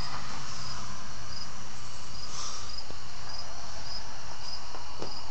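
A cricket chirping steadily, about two short high chirps a second, over a constant hiss.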